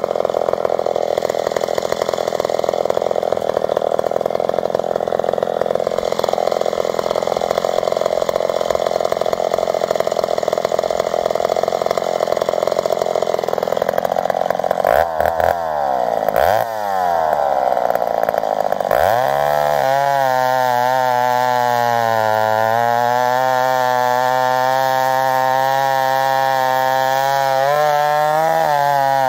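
McCulloch Super 55 two-stroke chainsaw (83 cc, rebuilt and ported) running hard while bucking grand fir with a 32-inch roller-nose bar and .404 full-skip chain. About halfway through, the engine speed drops and surges sharply a few times, then settles into a steady high-revving note.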